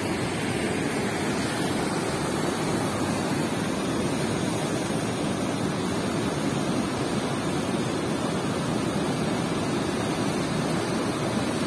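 Steady rush of water pouring through the open sluice gates of a river barrage and churning downstream, an even continuous noise.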